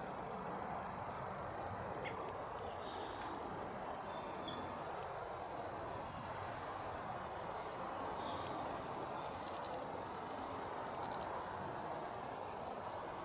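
Steady outdoor background hiss with a few faint, brief high bird chirps, and a short cluster of clicks about nine and a half seconds in.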